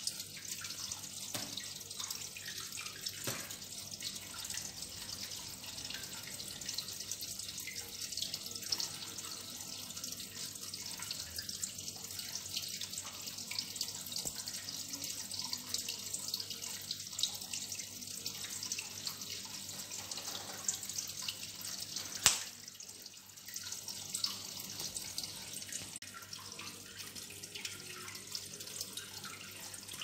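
Steady trickling of running water, a continuous hiss full of fine splashing ticks, with one sharp click about 22 seconds in.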